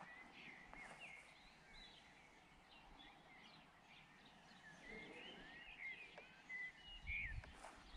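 Faint birdsong: scattered short chirps and whistled calls over quiet outdoor ambience, with a brief low rumble near the end.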